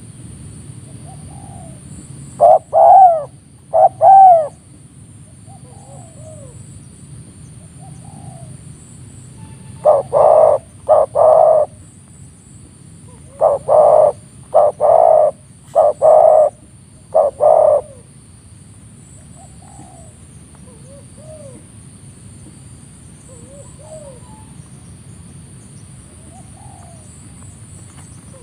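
Spotted doves cooing: two loud arched coo notes a few seconds in, then a loud phrase of three notes about ten seconds in and one of five notes a few seconds later. Fainter coos from other doves sound throughout.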